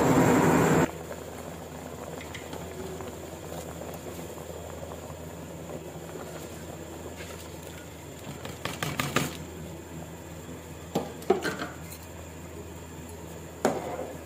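Pot of chicken broth boiling steadily and softly, with short clusters of clinks and taps about two-thirds of the way in and again near the end as soaked rice is tipped from a plastic colander into the pot. A louder rush of noise in the first second cuts off suddenly.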